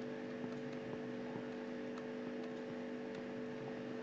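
Steady electrical hum with faint hiss, and a few very faint ticks.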